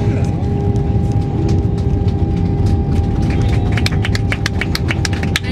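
Cabin noise inside an Airbus A321-231 rolling on the ground: a loud, steady low rumble with a steady hum over it. A little past halfway a rapid, even ticking joins in, about four or five ticks a second.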